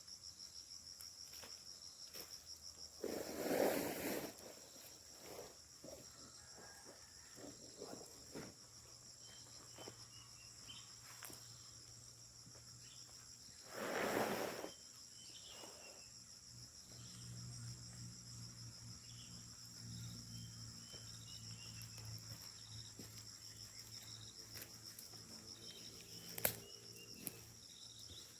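Forest insects chirring in a steady high-pitched trill, with two louder noises about a second long, one near the start and one midway. About halfway through, a low steady drone comes in from the machinery of a palm oil mill far away.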